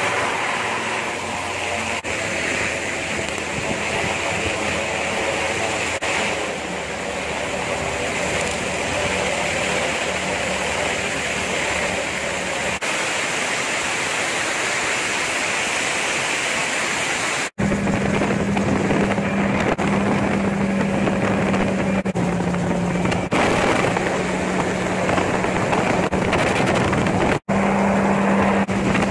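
Gyrocopter's engine running with heavy wind and airflow noise. After an abrupt break a little over halfway, a steady engine drone in flight carries on to the end, broken once more briefly near the end.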